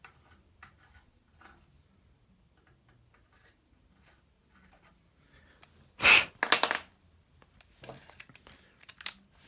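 Small metal pieces being handled on a workbench: faint scattered ticks, then about six seconds in a sharp metallic clatter of two or three clinks, one ringing briefly, followed by lighter clicks and one sharp click near the end.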